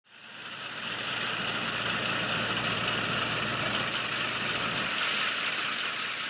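A compact tractor running steadily with a tractor-mounted SISIS Javelin Aer-Aid air-injection aerator working the turf. It is a steady, hissy machine noise over a low engine hum, fading in over the first second.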